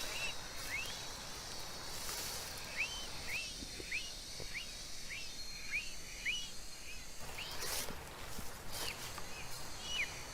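Outdoor woodland ambience: a bird repeats short, high chirps that fall in pitch, about once or twice a second with a pause near the end, over a steady background hiss.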